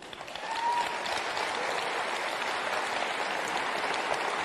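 Large audience applauding, the clapping swelling within the first second and then holding steady.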